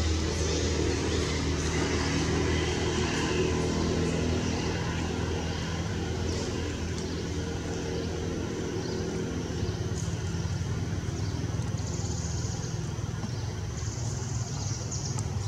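A motor engine running steadily with a low, even hum.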